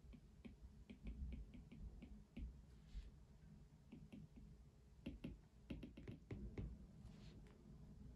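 Faint, irregular light clicks and taps at a desk, a few a second, with a soft low thump now and then.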